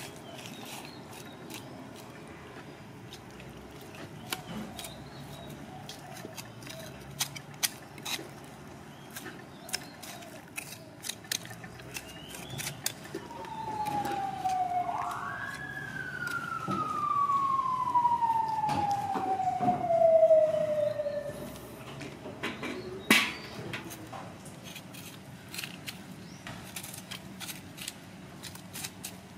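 A siren-like wail that dips, climbs sharply, then falls slowly over about six seconds, the loudest sound here. Scattered short clicks and knocks run throughout, with one sharp knock just after the wail ends.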